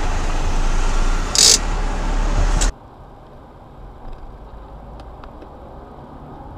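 Loud street traffic noise with a deep rumble, heard through a car's dashcam, with a short loud hiss about one and a half seconds in. Then it drops suddenly to the quieter hum of road noise inside a moving car, with a few faint ticks.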